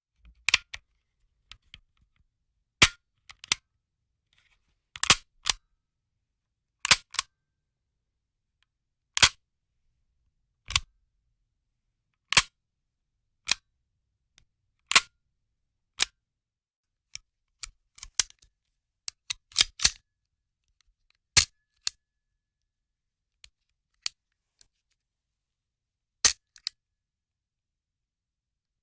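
Handgun sound effects: a series of single sharp gunshots a second or a few seconds apart, some in quick pairs, with quieter mechanical clicks among them and silence between.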